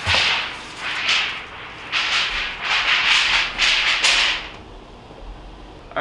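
Styrofoam refrigerator evaporator cover scraping and rubbing against the liner as it is lifted out, a run of hissy scrapes that stops about four and a half seconds in.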